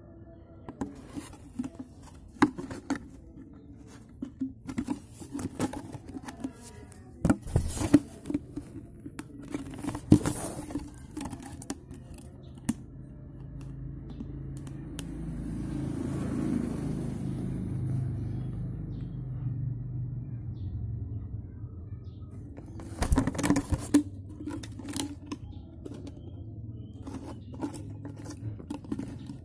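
Handling noise from a phone and a clear plastic bottle being moved about: irregular taps, clicks and scrapes, with louder knocks about a quarter of the way in, about a third of the way in and about three quarters through, and a swell of low rustling in the middle. A faint steady high-pitched whine sits under it all.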